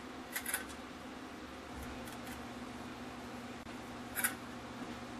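Two short rubbing sounds, about half a second in and again near the end, as an applicator wipes finish onto a turned wooden chisel handle, over a steady low hum.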